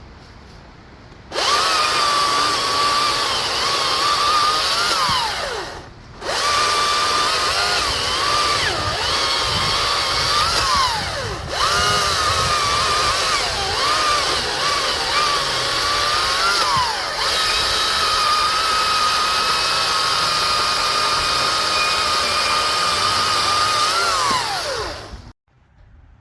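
Greenworks Commercial 82V cordless chainsaw (82CS34) running with a high, steady electric whine, starting about a second in, while it makes cutting passes. Its pitch sags and glides down several times as it comes under load or the trigger is let off, and it winds down and stops near the end.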